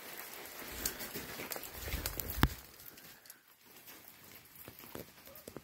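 Rain and dripping water pattering on wet rock, with scattered taps and knocks and one sharp knock about two and a half seconds in.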